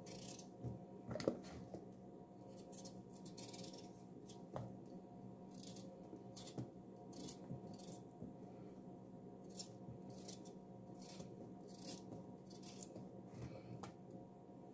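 Kitchen knife slicing through raw potato held in the hand, a series of short crisp cuts about one or two a second, over a faint steady hum.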